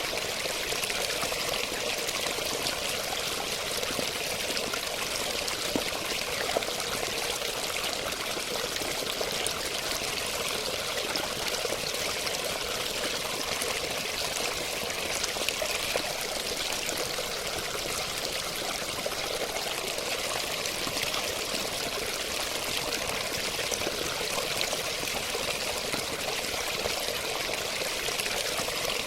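Running water, a steady unbroken splashing hiss, bright and light with little low rumble.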